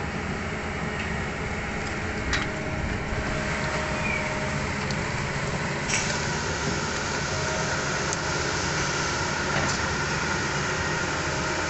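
Diesel engine of a Kobelco long-reach excavator running steadily under working load as the arm digs and swings, with a few sharp knocks, the clearest about two seconds in and again near the middle.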